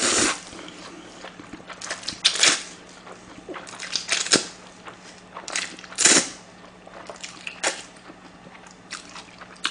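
Close-miked slurping of thin somen noodles: a string of sharp, wet slurps, loudest at the start and again about six seconds in.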